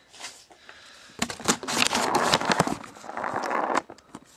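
Shortened mechanical pencil writing on paper: dense scratching of the lead on the page starting about a second in and lasting some two and a half seconds, with a few faint ticks near the end.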